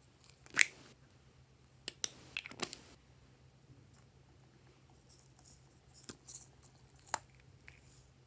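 Hard plastic toy containers clicking and snapping as they are opened and handled, a few short sharp clicks with the loudest about half a second in.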